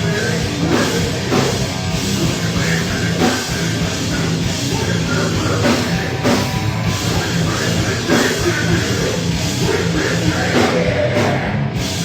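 Loud heavy rock music with a full drum kit and distorted instruments, playing steadily.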